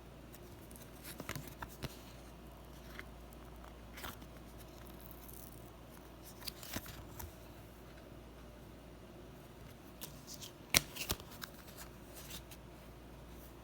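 Hands handling trading cards and their packaging: soft rustles and light clicks scattered throughout, with one sharp click about eleven seconds in followed by a few smaller ones.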